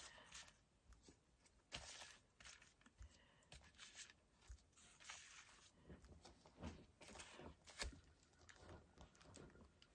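Near silence, with faint scattered taps and rustles from gloved hands handling a paint-covered coaster on its turntable.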